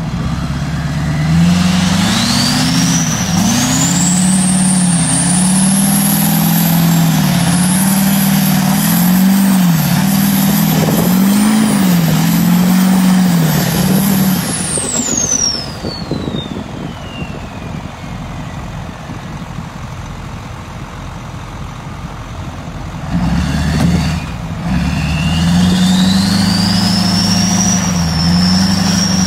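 Duramax 6.6-litre V8 turbo-diesel pickup revved hard in a two-wheel-drive burnout, tyres spinning on the pavement, with a high turbo whistle that rises and holds over the engine. About fifteen seconds in it lets off and the turbo whine falls away as it drops back. About 23 seconds in it revs up again, the turbo whistle climbing once more as it pulls against the tractor.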